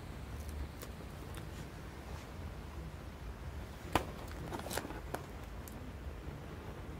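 Handling noise from a handheld phone: a few light clicks and taps, the sharpest about four seconds in, over a low steady rumble.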